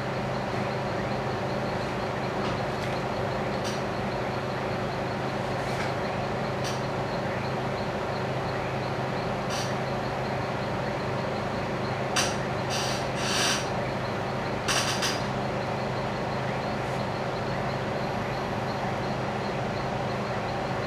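A steady low machine hum with hiss. A few short clicks and scrapes come together a little past the middle.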